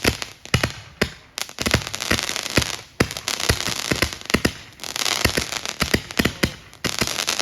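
Consumer fireworks going off: a rapid string of sharp pops and crackles with hissing, rising in fresh surges about a second and a half, three and five seconds in.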